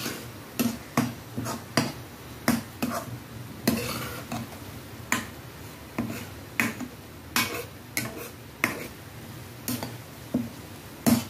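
Steel slotted spoon stirring a thick onion-and-spice masala in a kadhai, clacking and scraping against the pan in irregular sharp knocks, about two a second.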